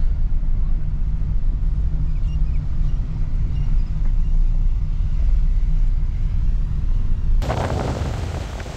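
Steady low rumble of road and engine noise inside a moving Honda City. About seven seconds in it cuts abruptly to the rushing of wind and surf.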